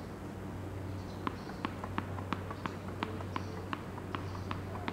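Tennis ball bounced repeatedly by a player before serving, a dozen or so sharp taps at about three a second, over a steady low hum.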